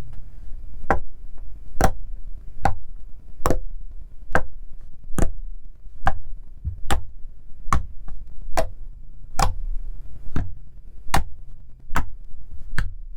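Sharp clicks repeating at an even beat, a little more than one a second, over a low steady rumble.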